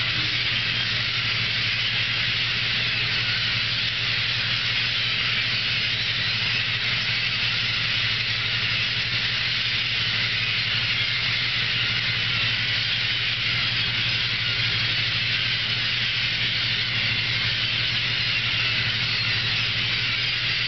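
Fishing boat's engine running steadily with a low hum, under a dense, constant hiss that is the loudest part of the sound.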